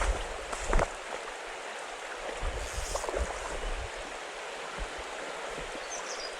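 Steady rush of a flowing stream, with a few short low bumps on top of it.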